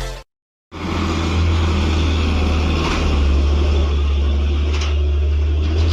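Steady low rumble of a road vehicle's engine running nearby, coming in after a brief moment of silence.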